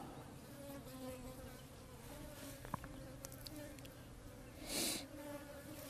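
Flies buzzing faintly around a rhino carcass, their hum wavering and coming and going. A short rushing noise about five seconds in.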